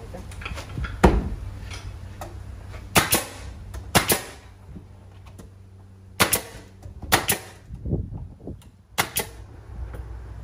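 Pneumatic nail gun firing nails into wooden wall boards: about seven sharp shots at irregular intervals, some in quick pairs.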